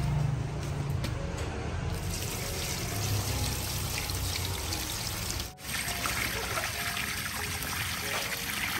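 Water poured from a metal pot into a large cooking pot packed with dong leaves, splashing steadily. The pour starts about two seconds in and breaks off briefly near the middle.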